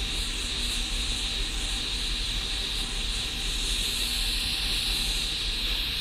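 Gas blowtorch flame hissing steadily with a low rumble underneath, held on a diesel heater burner to burn off its soot deposits.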